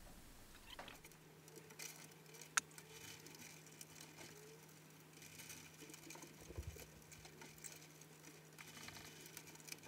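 Faint handling sounds of hands and a small tool working on wiring inside an overhead projector's case: scattered soft clicks and rustles, with one sharper click about two and a half seconds in, over a faint steady low hum.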